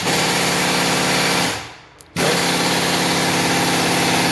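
A motor-driven tool running loudly and steadily. It winds down about one and a half seconds in, stops for about half a second, then starts again sharply.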